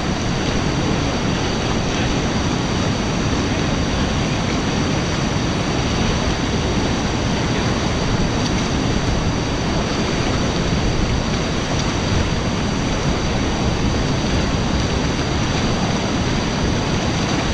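Whitewater river rapid rushing steadily, a loud, even rush of water.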